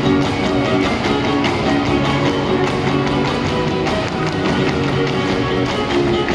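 A live string band playing huapango music, with the dancers' zapateado footwork stamping quickly on the wooden stage over it.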